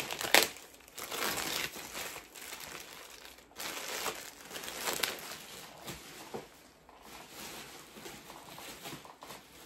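Plastic packaging crinkling and rustling as a pack of plastic-coated wire hangers is opened and handled. Near the start a small bin falls with one sharp knock, the loudest sound.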